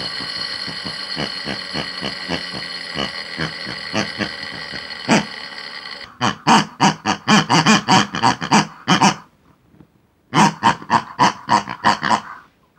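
Small electric motor of a homemade belt-driven flywheel rig running with a steady high whine and regular ticking. About six seconds in it gives way to two loud runs of rapid pulses, about four a second, with a short pause between them.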